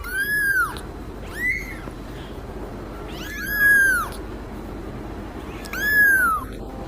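A cat meowing four times, high-pitched calls that rise and then fall in pitch: a long one at the start, a short one about a second and a half in, the longest and loudest a little past halfway, and a last one near the end.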